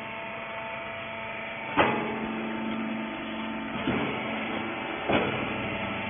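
Rag baler's electric motor and pump running with a steady hum, with three clunks: the loudest a little under two seconds in, then near four seconds and just past five.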